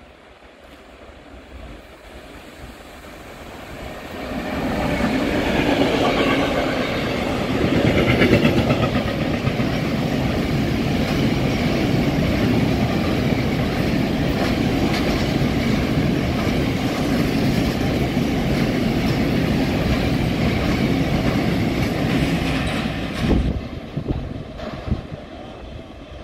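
Freight train of tank wagons passing through a station: the rumble builds over the first few seconds as the locomotive arrives, then holds loud and steady with the wagons' wheels clattering on the rails, and falls away near the end with a few sharp knocks as the last wagons go by.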